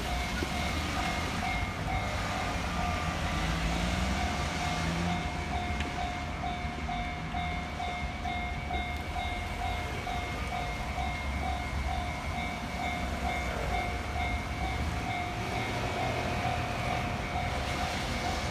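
Japanese level-crossing warning bell ringing, an evenly repeating electronic ding, over the low rumble of a train and heavy road traffic.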